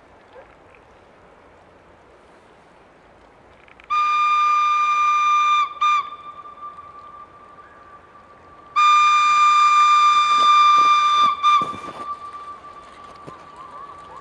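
A train's horn sounding one steady high note in two long blasts a few seconds apart, each followed by a short blip, with the train still out of sight.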